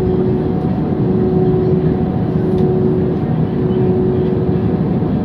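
Airbus A320 jet engines running, heard from inside the passenger cabin: a loud, steady rumble with a steady hum through it.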